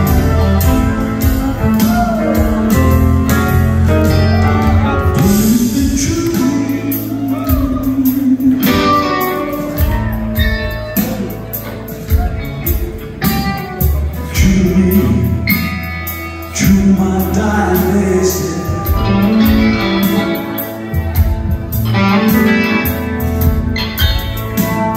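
Live band playing with a male singer, upright bass and piano among the instruments, heard from the audience through a phone microphone.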